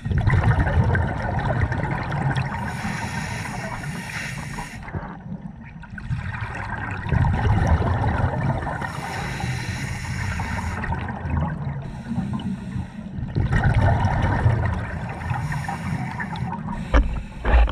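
Scuba breathing heard underwater: about three breaths from an open-circuit regulator, each a few seconds of rumbling, gurgling exhaust bubbles with a short lull between them. A sharp low knock comes near the end.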